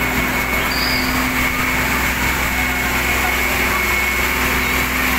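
Fire truck engine running steadily at close range, a constant drone with a thin high whine over it.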